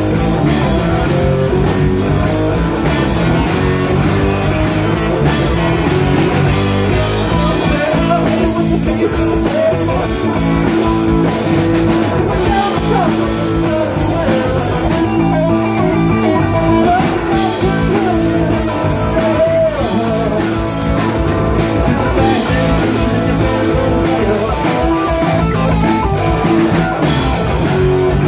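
A live rock band playing loudly: a Stratocaster-style electric guitar leads over electric bass and drum kit, with a saxophone in the band.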